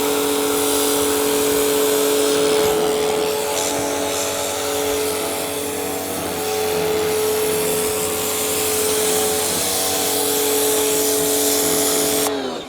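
DeWalt DCMPW1600N cordless pressure washer running: a steady whine from the motor and pump over the hiss of the water jet. It cuts off suddenly near the end.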